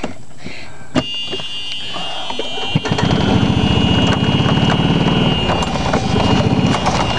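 Club Car golf cart's reverse warning buzzer sounding a steady high tone, switched on with a click about a second in. From about three seconds in, the cart's drive runs loudly as it backs up, easing off near the end.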